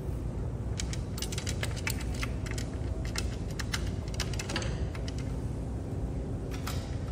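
Irregular clusters of small sharp clicks and taps from a hand tool and screws against a tubular stool frame as it is screwed together.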